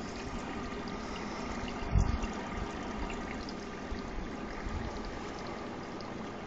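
Steady trickle and rush of water from an aquarium tank's filter or water flow, with one short low thump about two seconds in.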